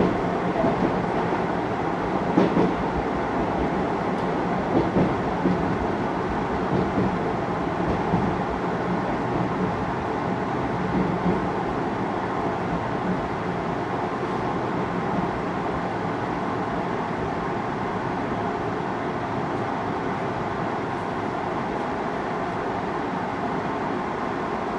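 Cabin sound of a JR Hokkaido 733 series electric train running and slowing into a station: a steady rumble of wheels on rail with a few knocks in the first half, growing a little quieter toward the end as it brakes.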